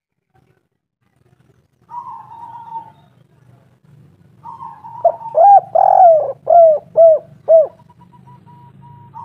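Spotted dove cooing: a soft coo about two seconds in, then a run of loud, arched coos between about five and eight seconds in.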